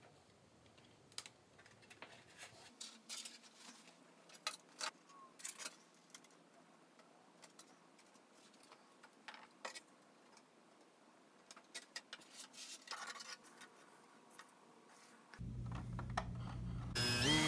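Faint, scattered clicks and taps of lightweight 3D-printed PLA airframe parts being handled and fitted together by hand. About 15 s in, a louder steady low sound comes in, and music starts just before the end.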